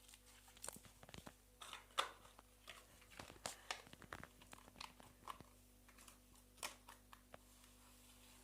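Slime being squeezed and worked by hand, giving quiet, irregular crackles and pops, busiest and loudest about two seconds in.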